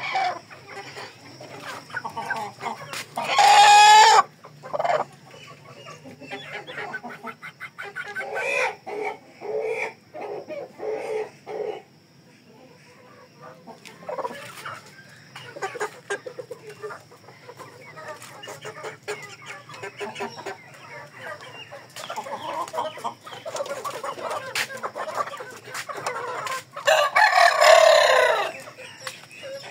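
Chickens clucking with short repeated calls, and a rooster crowing loudly twice, once a few seconds in and again near the end.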